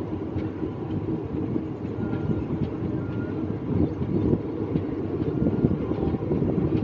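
Passenger train running at speed, heard from outside a coach: a steady, choppy rumble of wheels on the track with wind rushing past the microphone.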